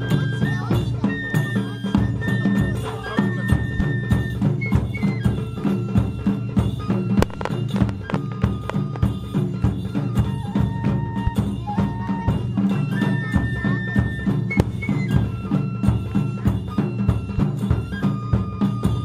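Japanese taiko drum ensemble playing a fast, driving rhythm, with a high flute melody in held notes over the drums.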